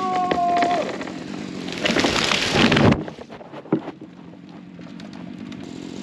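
Chainsaw running: its high revving tone drops away within the first second, then comes about a second of loud, rough noise that stops abruptly, followed by a quieter steady low hum with a few sharp clicks.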